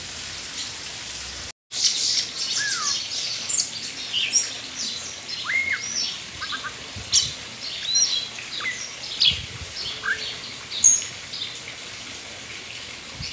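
Sabiá thrush singing: a varied run of short whistled and chirping notes, some sliding up or down in pitch, starting abruptly after a brief dropout about a second and a half in.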